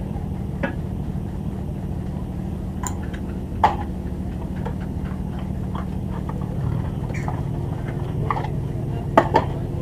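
Steady low engine hum aboard a wooden fishing boat, with scattered short knocks and clicks over it.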